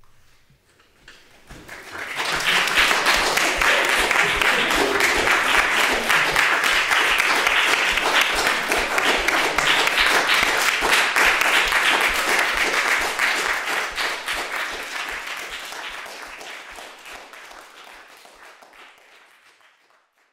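Audience applauding. The clapping starts about two seconds in, holds steady, then dies away over the last several seconds.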